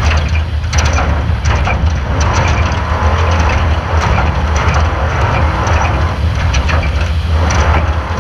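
Off-road desert race car driving hard: a steady low rumble of the running vehicle, with many sharp knocks and rattles throughout.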